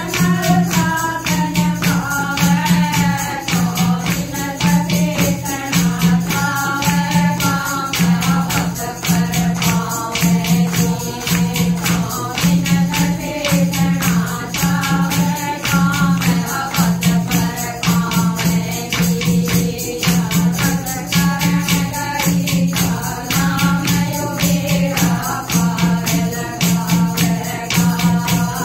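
A group of women singing a Haryanvi bhajan together to hand-clapping, a jingling hand rattle and a steady low beat played on a clay pot.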